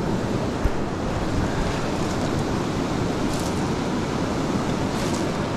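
Steady rush of river water flowing over a rocky riffle.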